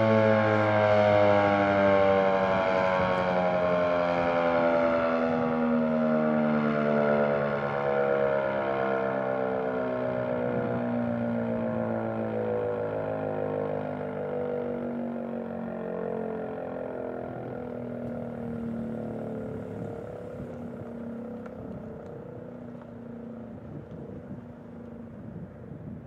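ACA P-15 rotating electromechanical warning siren winding down at the end of its attack signal, its pitch falling slowly and the sound fading as the rotor coasts to a stop.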